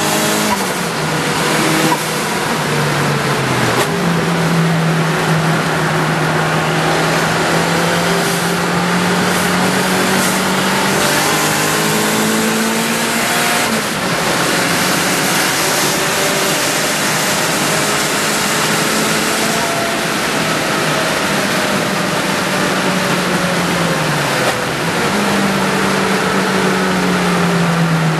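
Turbocharged Toyota twin-cam engine pulling hard on a race track, heard from inside the cabin over a steady rush of wind and road noise. Its note climbs and drops sharply at each gear change, eases down for a few seconds late on, then climbs again.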